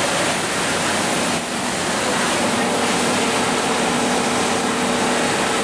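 Steady rushing background noise of a workshop, with a faint low hum running through it from a couple of seconds in.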